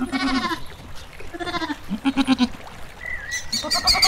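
Bleating: three short, wavering, bleat-like calls in the first two and a half seconds. Near the end a high, fast chirping starts, about seven pulses a second.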